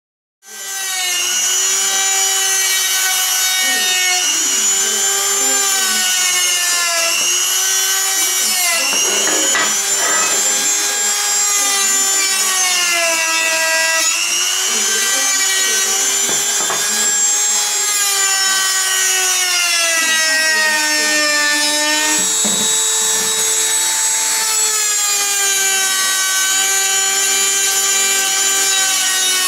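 Small hand-held rotary tool with a small disc attachment, whining at high speed as it is worked along the edges of black-painted steel parts, wearing the paint off to weather them. The whine wavers in pitch as it presses on the metal, with scraping contact sounds, and briefly runs higher about two-thirds of the way through.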